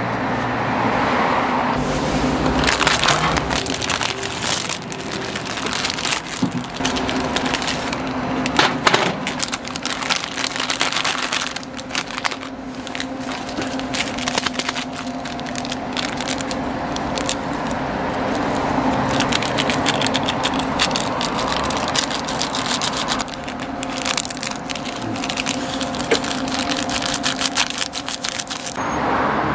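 Plastic instant-ramen wrappers and seasoning sachets crinkling and crackling as they are torn open and handled, with a steady low hum underneath.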